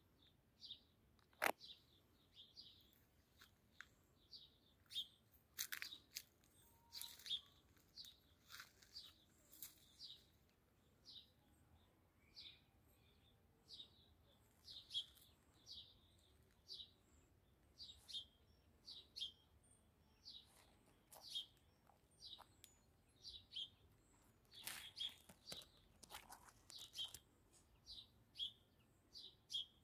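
A small bird chirping over and over, short single notes at about one and a half a second. A few sharp clicks and short rustles come in between.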